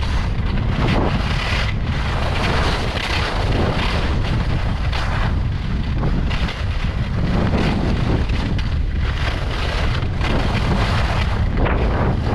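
Wind buffeting the microphone as the skier moves downhill, with the hiss of skis carving on groomed snow swelling and fading with each turn, every second or two.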